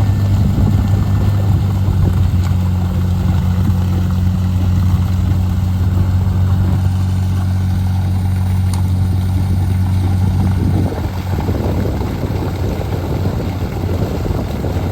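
A diesel engine of road construction machinery running steadily at constant speed with a deep hum. It eases a little and drops slightly in level about eleven seconds in.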